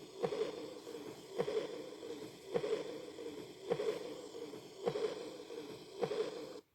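Heart sounds of aortic regurgitation through a stethoscope: six beats a little over a second apart, each a sharp heart sound followed by a soft blowing murmur that fades away. This is the early diastolic murmur of aortic regurgitation. It cuts off suddenly near the end.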